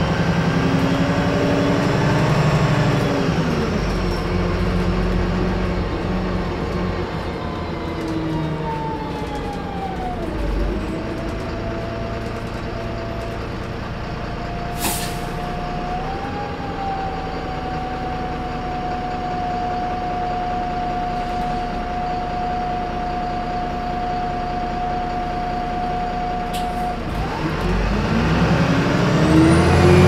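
Interior sound of a 2009 VDL SB200 Wright Pulsar 2 diesel bus: the engine note rises at first, then a whine glides down as the bus slows and settles into a steady high turbo whine for about fifteen seconds. A short air-brake hiss comes midway. Near the end the whine cuts off and the engine note climbs again.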